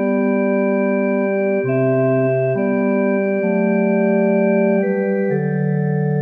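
Organ playing a slow instrumental hymn tune in held chords, changing chord every second or so, with a brief wavering tremolo near the middle.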